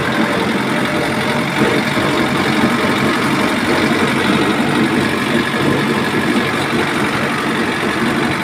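Tractor engine idling steadily, with an even, unchanging run.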